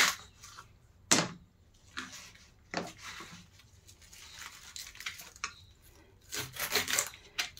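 Kitchen knife chopping through a bunch of water spinach stems onto a plastic chopping board. There are three separate cuts about a second apart, then a quicker run of cuts near the end.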